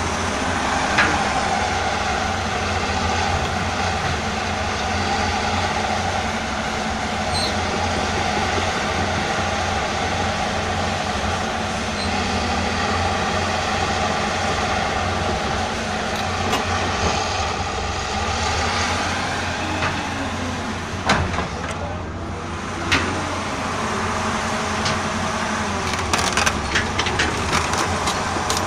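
Caterpillar excavator's diesel engine running steadily under a function check, with a few sharp knocks and a run of rattling clicks and clanks near the end.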